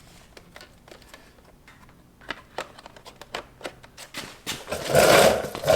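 Small parts being handled during motorcycle fairing assembly: light, irregular clicks and taps, then a louder scraping, rustling noise in the last second or so.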